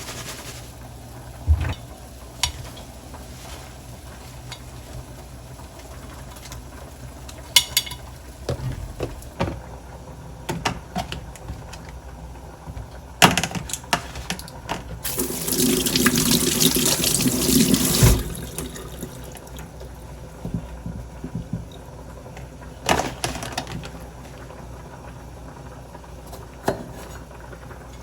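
Kitchen handling sounds: scattered clicks and knocks, with water running from a tap for about three seconds in the middle.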